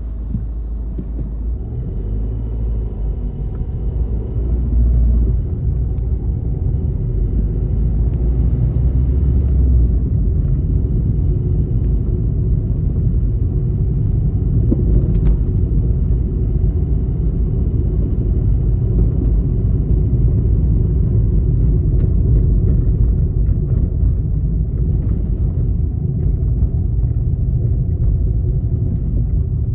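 A car driving along a city road: a steady low rumble of engine and tyres. A faint high steady tone sits under it through the first two-thirds.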